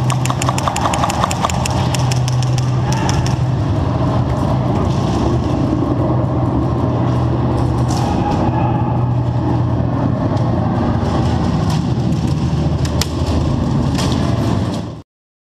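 Airsoft guns firing rapidly, a fast string of sharp clicking shots that thins out about three seconds in, over a loud steady low hum. A few single sharp cracks follow later, and the sound cuts off abruptly just before the end.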